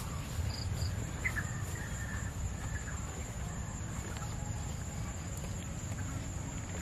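Outdoor ambience dominated by a steady high-pitched insect drone, likely crickets or cicadas, over a low rumble. A faint bird-like chirp sounds about a second in.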